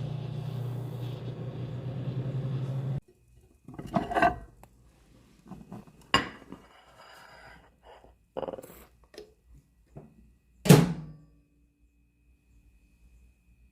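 A steady electric appliance hum that cuts off suddenly about three seconds in, then scattered kitchen clinks and knocks of dishes and utensils. The loudest is a single ringing clank near the end.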